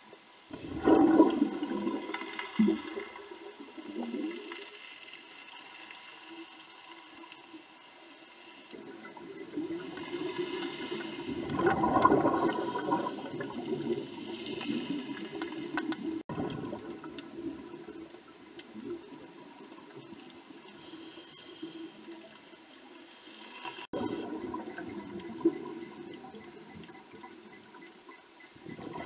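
Underwater sound of a scuba diver breathing through a regulator: surges of bubbling exhaust about a second in and again around twelve seconds, short hissing inhalations between them, over a steady underwater wash.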